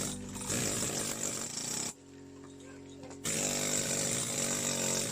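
A small petrol-engine power tool running hard, dropping back to a steady idle about two seconds in, then revving up again about a second later.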